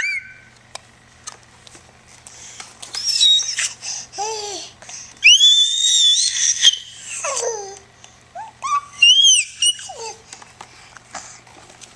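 Baby babbling and squealing: a string of very high-pitched, gliding vocal squeals with pauses between them, the longest lasting about two seconds near the middle.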